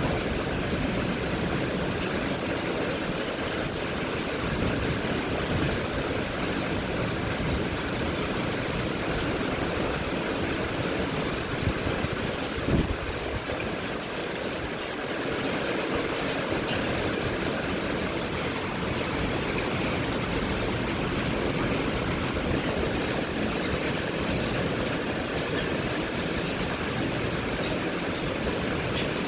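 Steady rushing storm noise of rain and wind, with a single short knock about halfway through.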